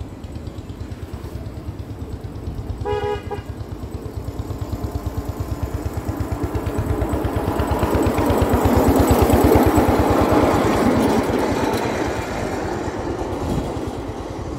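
Miniature railway locomotive with an exposed stationary-style engine, chugging with a steady fast beat as it approaches, gives a short horn toot about three seconds in. It grows louder as the train passes, the rumble of wheels on the rails peaking around nine seconds in, then fading.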